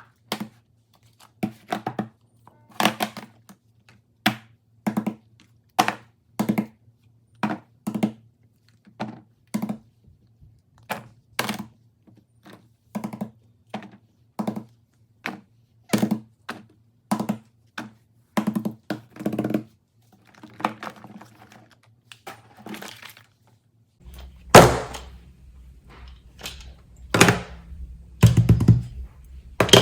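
Fidget toys being handled, popped and set down: a long run of separate knocks and pops, about one or two a second, over a faint low steady hum. About three-quarters of the way in the hum deepens and the knocks get louder.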